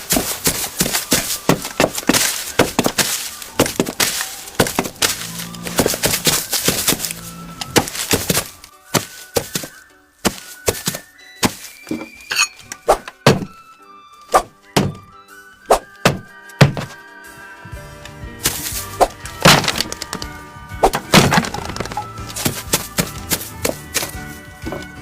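Foley sound effects: a rapid run of sharp knocks, cracks and breaking sounds, sparser and quieter in the middle, over music with sustained held tones.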